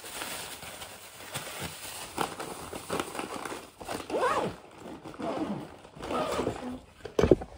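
A plastic bag crinkling and rustling as it is handled and packed into a backpack, with a sharp thump near the end.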